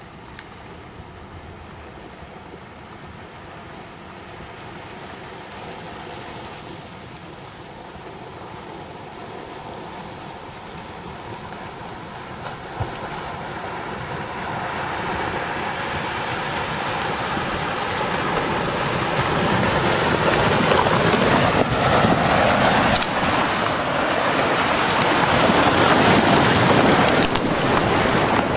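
Flash flood debris flow, a churning front of mud, logs and brush, rushing down a desert wash, its rushing noise growing steadily louder as it arrives and surges past. A few short cracks or knocks come through in the second half.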